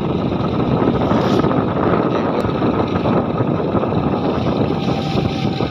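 Motorcycle on the move: steady engine noise mixed with wind rushing over the microphone.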